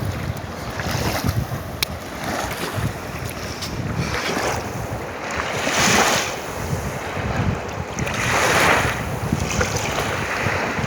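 Kali Gandaki river water rushing, with wind buffeting the microphone. The rush swells twice, about six and eight and a half seconds in.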